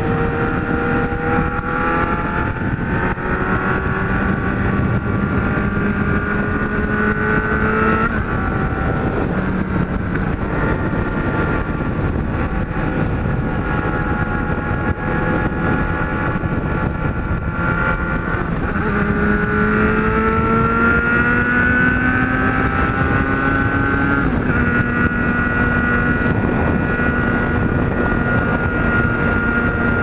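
Kawasaki Z1000 inline-four running through a straight-pipe exhaust with no muffler, under way at highway speed, with wind noise on the microphone. The engine note rises as it accelerates, changes about 8 seconds in and again about 24 seconds in, then holds steady at cruise.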